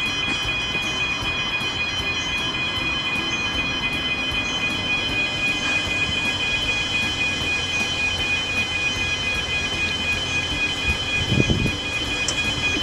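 Railway level crossing alarm sounding steadily in a rapid pulsing warble, over the rumble of a passing train. A car passes close by near the end.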